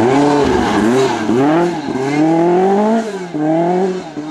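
Lancia 037 rally car's supercharged four-cylinder engine at full throttle, its pitch rising and dropping back about five times as it shifts up through the gears. It fades near the end as it pulls away.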